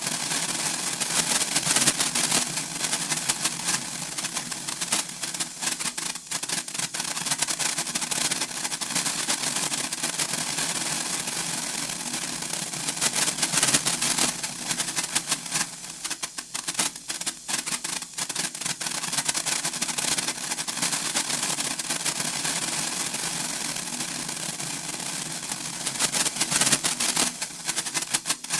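Senko hanabi, a Japanese hand-held sparkler, crackling with a dense, rapid patter of tiny spark pops. The crackle thins a little about two-thirds of the way through and grows heavier again near the end.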